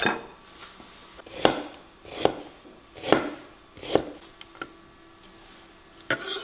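Kitchen knife slicing fresh ginger on an end-grain wooden cutting board: about five firm chops roughly a second apart, then a few light taps and two quick chops near the end.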